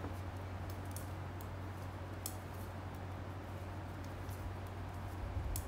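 Straight metal knitting needles clicking lightly and irregularly as stitches are knitted, over a steady low hum.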